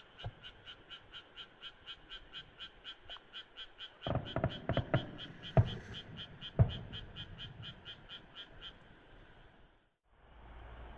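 A chorus of frogs croaking in a steady rhythm, about four calls a second. A burst of sharp thumps comes in the middle, with two louder bangs. Near the end the croaking cuts off and gives way to a low steady hiss.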